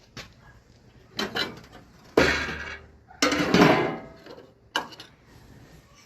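Several loud metallic clanks with ringing, coming in separate bangs about a second apart, the longest two ringing on for most of a second.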